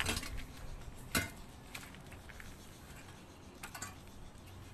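Metal rake tines scraping and knocking through dry leaves, paper and rubble on a concrete tomb floor. A few short scrapes and clinks, the clearest just over a second in and a pair near the end.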